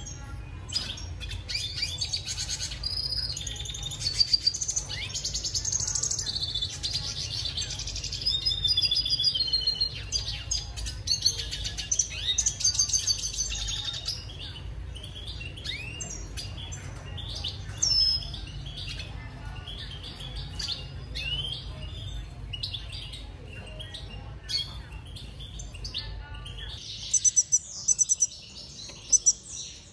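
Red siskins chirping and twittering: a fast, dense warbling song in the first half gives way to separate short calls that slide downward in pitch. A low steady hum runs underneath and stops near the end, where quick high ticking comes in.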